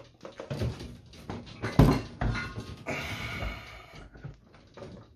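Metal parts of a CNC router knocking and scraping as a metal plate is handled and shifted into place on the gantry, with the loudest knock about two seconds in and a short scrape a second later.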